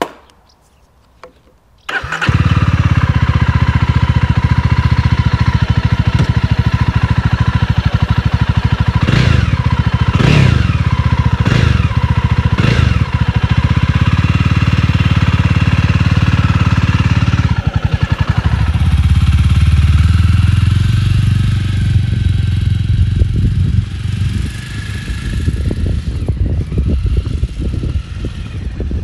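Jawa 300 motorcycle's single-cylinder four-stroke engine starting up about two seconds in and settling to a steady idle. It is blipped four times around the middle, each rev rising and falling quickly. From about two-thirds of the way in it runs more unevenly as the bike pulls away.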